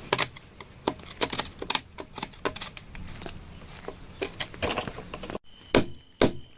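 Irregular clicks, taps and scrapes of digging in rocky ground, with two loud knocks near the end.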